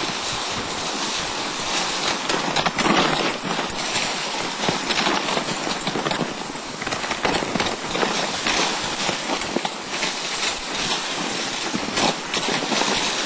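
A dog sled running behind its husky team on a snow trail: a steady hiss of the runners over the snow with irregular knocks and rattles from the sled and the dogs' running.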